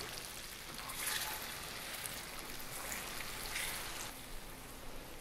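Hot caramel sizzling and bubbling with a steady hiss as heavy cream is stirred into it with a silicone spatula, the stage where cream turns caramel into caramel sauce.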